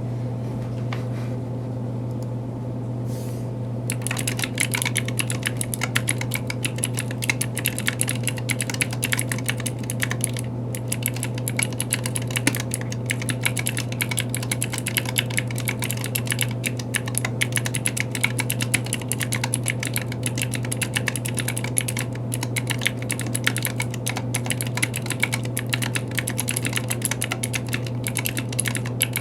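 Typing on a Planck mechanical keyboard with Kailh Pro Light Green clicky switches: rapid, continuous key clicks starting about four seconds in, with a short pause about ten seconds in. A steady low hum runs underneath.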